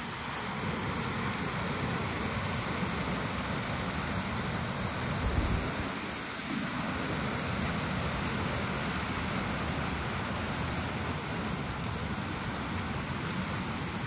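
Steady rushing of a mountain river, with a brief louder low rumble about five seconds in.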